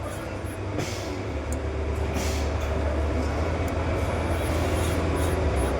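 Steady low machinery hum, growing a little stronger about a second in, with a few short hisses over it.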